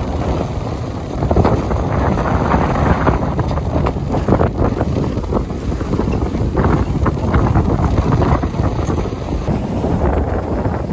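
Strong wind buffeting the microphone on the deck of a sailboat under way in rough seas, gusting unevenly, with water rushing along the hull.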